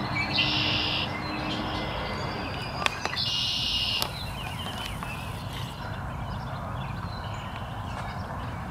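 Birds calling outdoors: two short, loud buzzy calls about half a second and three seconds in, with scattered faint chirps over steady background noise.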